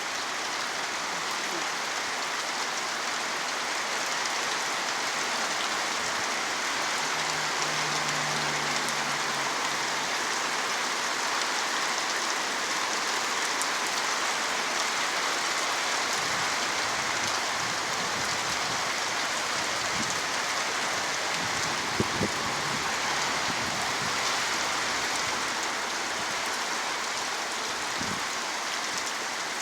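Steady rain falling, a continuous even hiss, with a brief low hum about eight seconds in and a sharp knock about 22 seconds in.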